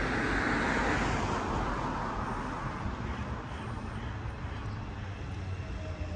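A car passing by, its tyre and engine noise swelling in the first second and then fading away, over a steady low rumble of street traffic.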